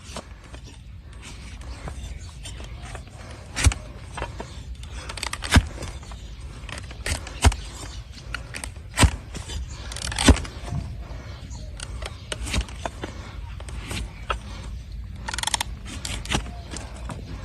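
A farrier's hand tools cutting into a donkey's hard, overgrown hoof horn: irregular sharp snaps and clicks a second or two apart, with scraping between them.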